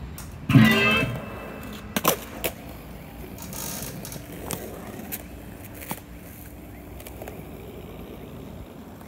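A Telecaster-style electric guitar strummed once about half a second in, the chord ringing out briefly. After it come several sharp clacks of a skateboard on pavement, spread over the next few seconds above a steady low rumble.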